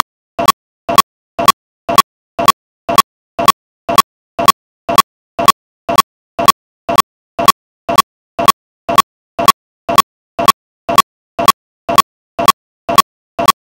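A steady percussive beat of sharp taps, about two strokes a second, each stroke a quick double hit, softer then louder, with no change in tempo.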